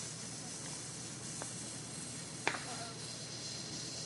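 A lit firework fuse burning with a steady hiss, with two sharp crackles from the fuse, a faint one about one and a half seconds in and a louder one a second later.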